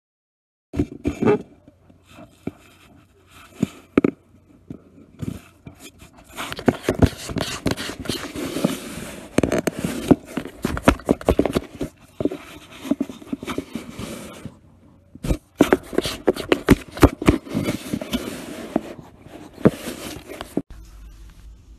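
Irregular scraping and rustling against cardboard, with scattered clicks and knocks.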